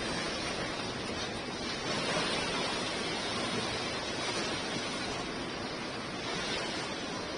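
Steady, even rush of the swollen Alaknanda River in flood, fast water running high after heavy rain.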